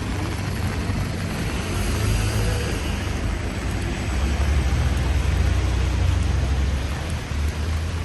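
Street traffic on a wet road: a vehicle passing with a hiss of tyres, and a low engine rumble that swells about four seconds in and eases near the end.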